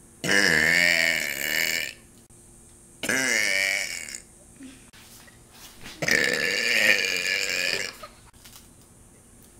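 A person burping: three long, loud belches, the first about a second and a half, the second about a second and the last about two seconds.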